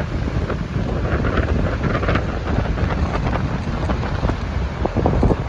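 Wind buffeting the microphone in heavy, uneven gusts over the wash of surf breaking on a rocky shore.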